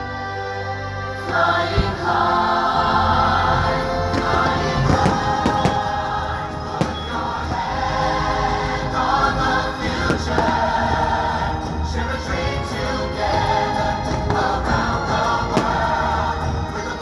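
Fireworks-show soundtrack playing over loudspeakers: orchestral music with a choir singing, swelling to full volume about a second in.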